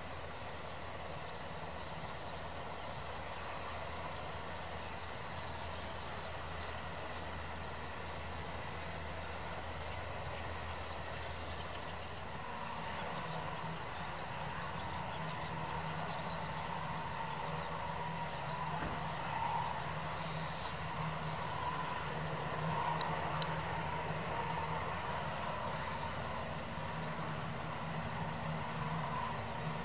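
Kawasaki/Mitsubishi SH-60K helicopter running on the ground, its twin turboshaft engines and turning rotors making a steady low hum that shifts in pitch partway through as it moves off. From about the middle a rapid series of high chirps repeats evenly over it, with a couple of sharp clicks.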